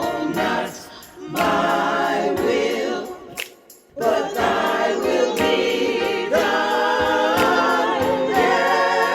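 Gospel choir singing a slow worship song, long held notes with vibrato, with two short breaks between phrases about one second and three and a half seconds in.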